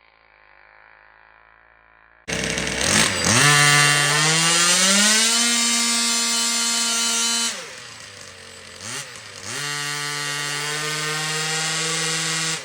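Small two-stroke petrol engine of a 1/5-scale Baja 5B RC car, cutting in suddenly about two seconds in and revving up to a high steady pitch. About midway it drops back, then revs up again and holds high.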